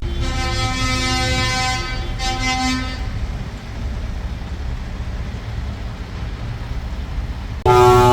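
Parade vehicles' horns honking over a steady low engine rumble: a chord of horn tones for the first few seconds, then mostly rumble, then a loud horn blast cuts in suddenly near the end.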